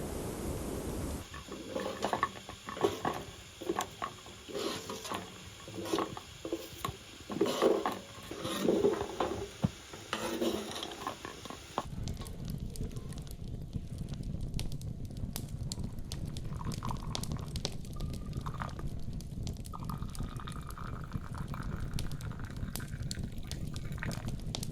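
Irregular clinks and knocks of camp cookware and utensils being handled, for about ten seconds. Then, after a cut, a steady low rushing noise.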